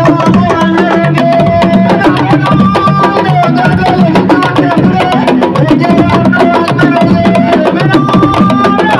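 Music of fast, dense hand drumming, typical of the sabar drums played at Senegalese wrestling, with long held melodic notes over the beat.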